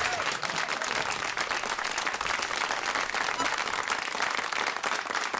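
Studio audience applauding with steady, even clapping.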